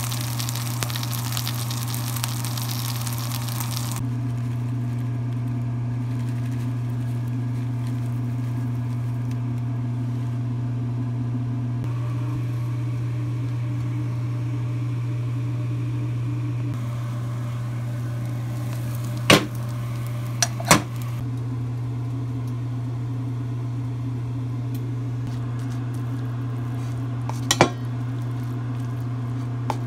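Kitchen cooking sounds over a steady low appliance hum: a pancake sizzling as it fries in a pan for the first few seconds, then a few sharp clinks of a metal spoon against a stainless steel bowl later on, the last one as rice is mixed.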